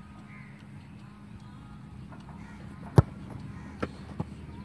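A football kicked hard in a free kick: one sharp thump about three seconds in, followed by two lighter thuds within the next second and a half.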